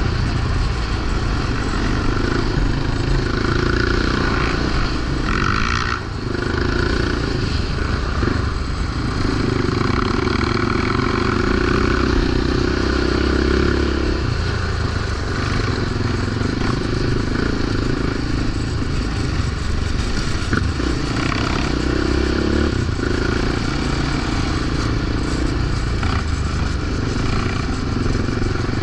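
Yamaha Raptor 700 quad ATV's single-cylinder engine running under way, its pitch rising and falling as the throttle is worked, with a brief drop about six seconds in.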